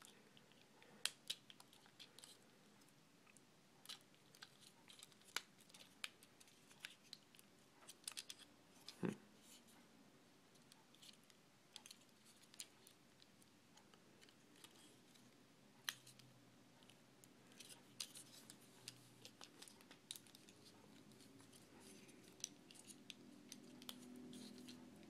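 Faint, scattered clicks and snaps of a plastic Transformers action figure's joints being bent and rotated by hand during transformation.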